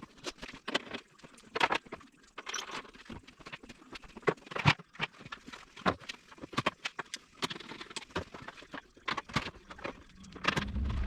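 Irregular clicks, taps and knocks of parts and tools being handled during hand work on a motorcycle, with a few short scrapes. A low thump comes near the end.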